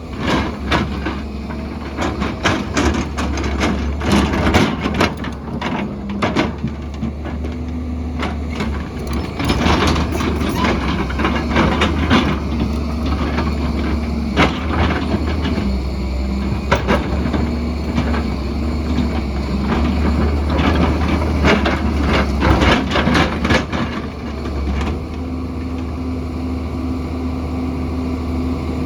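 Heavy earthmoving machine's diesel engine running steadily under load, with repeated clanks, knocks and scrapes of metal working against rock and soil.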